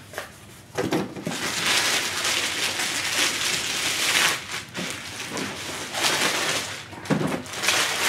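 A clear plastic sleeve crinkling as it is pulled off a boxed action figure and balled up in the hands: a long stretch of crinkling in the first half, then shorter bursts near the end.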